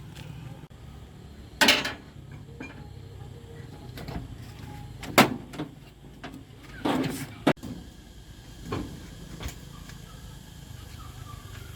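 Several sharp knocks and bangs, the loudest about a second and a half in and about five seconds in, with a cluster near seven seconds, over a steady low hum.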